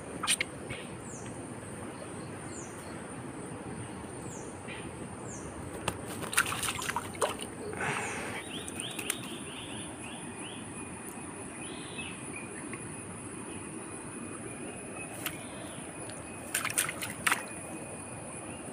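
Streamside outdoor ambience: a steady high insect drone and a bird repeating short falling calls, with a few bursts of rustling, clicking and splashing as a fishing net and its catch are handled in wet grass at the water's edge, clustered about six to seven seconds in and again near the end.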